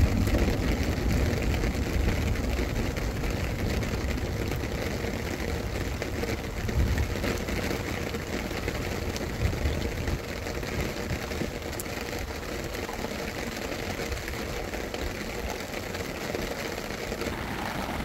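Long, low rolling rumble of thunder, loudest at the start and slowly fading, over the steady hiss of rain.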